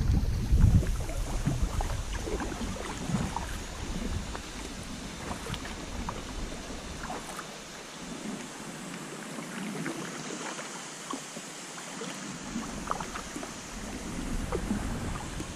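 Water splashing and dripping around a sea kayak as it is paddled: many small, irregular splashes. Wind rumbles on the microphone for the first half and then dies away.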